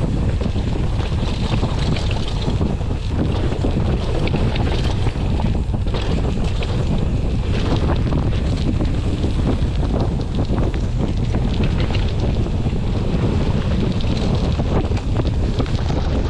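Wind buffeting the microphone of a camera riding along on a mountain bike going down a trail, a steady loud rumble with many small clicks and rattles from the bike over rough ground.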